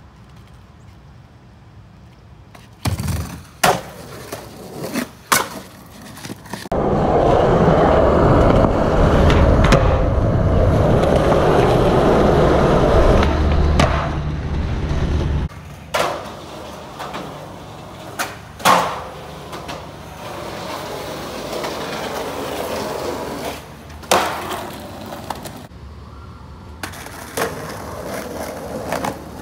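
Skateboarding across several cuts. There are sharp cracks of the board popping and landing on concrete, and in the middle a long stretch of skateboard wheels rolling loudly over rough pavement.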